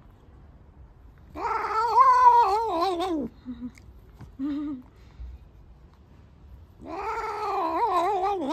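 Long-haired black cat giving two long, loud meows about two seconds each, their pitch wavering up and down, with a short, quieter mew between them.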